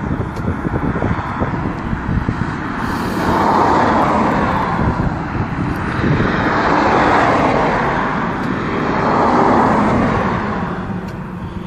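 Road traffic: three cars pass one after another, each swelling and fading as its tyres go by, over a steady low rumble.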